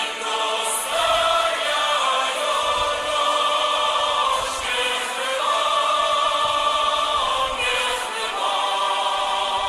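Background music of a choir singing long held notes.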